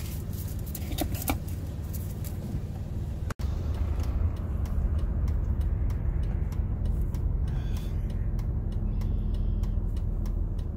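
A car running, a steady low rumble, with a string of light ticks in the second half. It breaks off briefly about a third of the way in.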